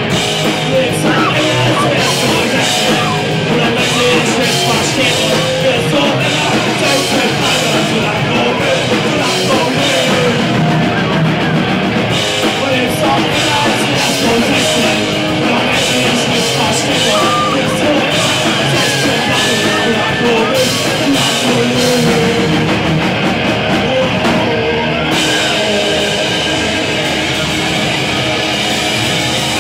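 A live rock band playing loud and without a break: electric guitars and a Sonor drum kit, with vocals into the microphone.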